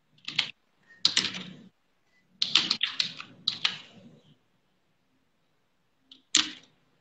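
A woman's voice breaking up over a video call with a poor internet connection: a few clipped, garbled fragments of speech cut apart by dead silences where the audio drops out.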